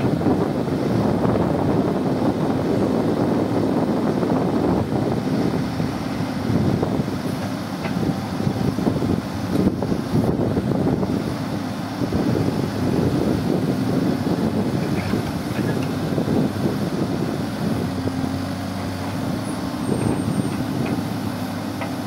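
Diesel engine of a Hidromek backhoe loader running steadily, its note rising and falling a little as the backhoe arm digs.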